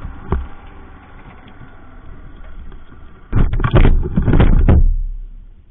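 Motorcycle running along the road with wind noise, then about three seconds in a rapid series of loud crashing impacts as the bike goes down. The noise fades out about a second later.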